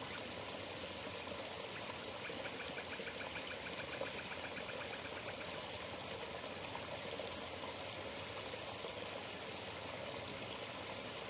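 Small forest stream trickling and pouring steadily into a shallow pool. A faint, rapid ticking trill joins for a few seconds about two seconds in.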